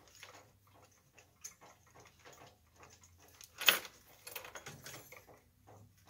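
Light handling noises as a wire is pushed and pulled through a metal chandelier arm clamped in a vise: scattered small clicks and rustles, with one sharper knock about three and a half seconds in.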